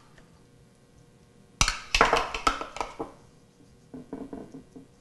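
Metal spoon clinking and scraping against a ceramic bowl and plate while scooping and plating mashed potatoes: a cluster of knocks about a second and a half in, then a few lighter taps near the end.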